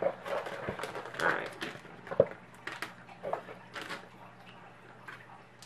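Rummaging in a cardboard box and handling plastic lure packaging: scattered rustling and crinkling, with a sharp click about two seconds in.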